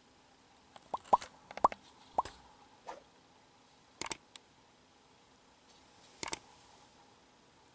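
Animated subscribe-overlay sound effects: a few quick bubbly pops that sweep up in pitch during the first three seconds, then a double mouse-click about four seconds in and another about six seconds in.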